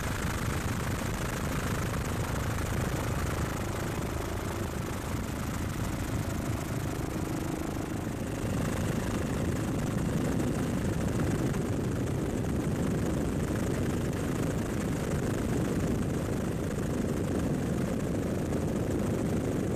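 Steady helicopter engine and rotor noise heard from aboard the aircraft, shifting slightly in tone about eight seconds in.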